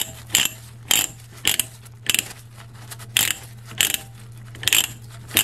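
Ratchet of a manual pipe threader clicking as the die head is turned on black iron pipe: single sharp clicks, about one every half second to a second, over a faint steady low hum.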